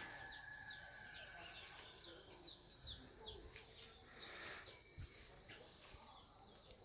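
Faint birdsong: many short, high chirps, each falling in pitch, repeated over and over above a steady high hiss.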